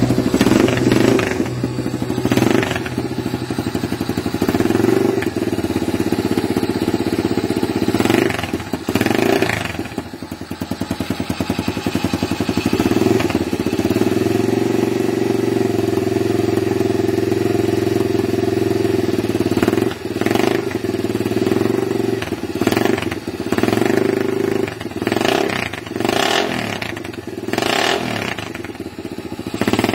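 Honda CT70 minibike's new 110 cc engine running, its sound rising and falling several times.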